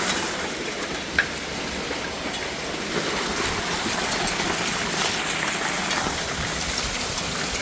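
Hailstorm pelting down: a dense, steady hiss of hail and rain striking surfaces, with a few sharper individual hits, one about a second in.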